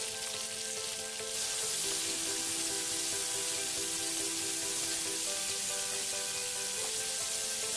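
Sliced onions sizzling in hot oil with mustard seeds and curry leaves in a kadhai, stirred with a wooden spatula. The sizzle grows louder about a second and a half in. Soft background music with held notes plays over it.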